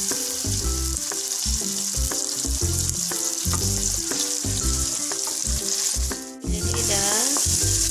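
Eggs frying with chili paste in oil in a wok, a steady sizzle as they are stirred. Background music with bass notes plays underneath, and the sound cuts out briefly about six seconds in.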